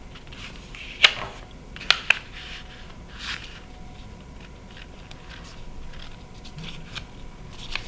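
A sheet of paper being folded over and creased by hand: a few sharp crackles, one about a second in and two close together around two seconds, then softer rustling.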